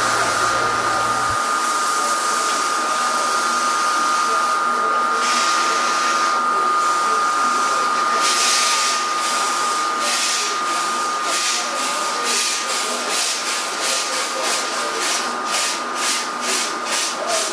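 Large stationary steam engine that drives the sawmill's ripsaw starting up: steam hissing with a steady high tone, then from about halfway through, exhaust chuffs that come faster and faster as the engine gathers speed.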